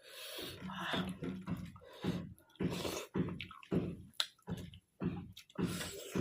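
Close-miked chewing and wet mouth sounds of a person eating soft stinging-nettle greens with maize rice, coming in irregular short bursts about twice a second.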